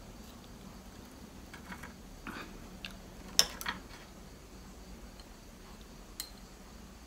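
Wooden chopsticks stirring noodles and tapping against a ceramic bowl, scattered light clicks with one sharp clink about three and a half seconds in; a small ceramic sauce dish clinks against the bowl near the end. A low steady hum runs underneath.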